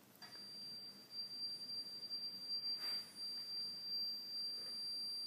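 TTK FG-SYS leak detection panel's alarm buzzer sounding one steady high-pitched tone, starting just after the beginning. It signals that the panel has detected a leak on the sensing cable.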